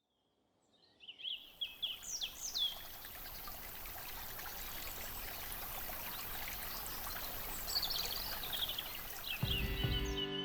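Steady rush of running stream water with birds chirping in quick, repeated downward-sweeping calls, in two spells. Music begins just before the end.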